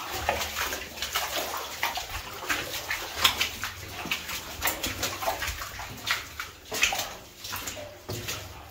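Footsteps in wellington boots splashing and sloshing through shallow water and mud, an irregular run of steps.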